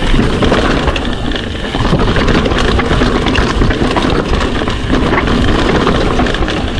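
Trek Slash full-suspension mountain bike ridden on a dirt trail, heard through an action camera: a loud, steady rush of wind and tyre noise with constant rattling and clatter from the bike.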